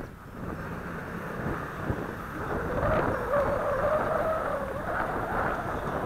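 Wind buffeting the microphone, with the electric motor and propeller of an FMS Dragonfly RC plane whining overhead. The whine comes in about halfway through, at a fairly steady pitch, and is the loudest sound.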